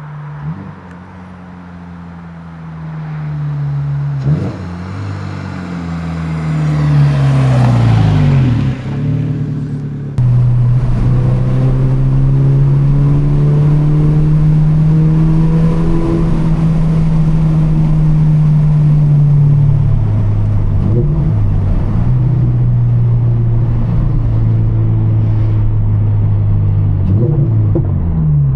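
Toyota GR86's 2.4-litre flat-four engine and exhaust under way. The engine note rises and falls several times through acceleration and gear changes in the first ten seconds, then holds a steady pitch and settles to a lower steady note about twenty seconds in.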